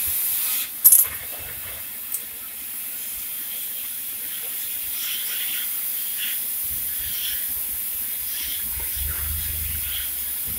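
Cutting torch of a CNC profile cutting machine giving a steady hiss, with a sharp loud crack about a second in and a smaller click a second later.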